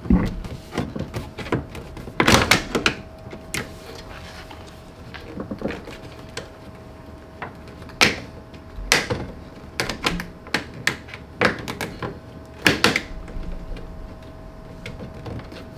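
Dishwasher side trim piece being pushed and snapped onto the unit's side frame: scattered knocks, clicks and a few louder thunks, over a faint steady hum.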